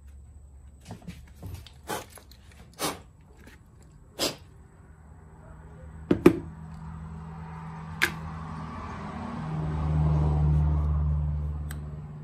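Sharp metallic clicks and knocks, several spaced a second or so apart, from starter motor parts being handled and fitted back together. Near the end, a rumble swells and fades over about three seconds.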